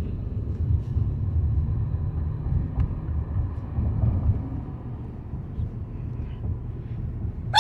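Steady low road and engine rumble heard from inside a moving car. A single sharp hiccup cuts in right at the end.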